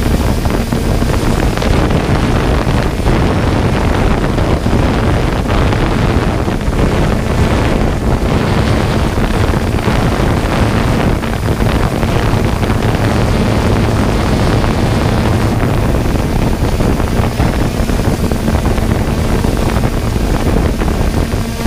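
3DR Solo quadcopter's propellers and motors, heard through its on-board camera: a steady loud rush of noise with a low hum under it, mixed with wind buffeting the microphone.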